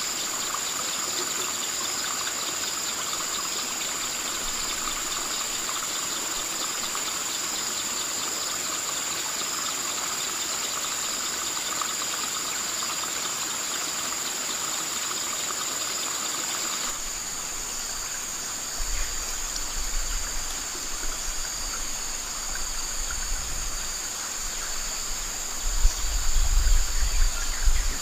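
A steady, high-pitched insect chorus over an even hiss. About two-thirds of the way through the sound changes abruptly, and low rumbles come and go, strongest near the end.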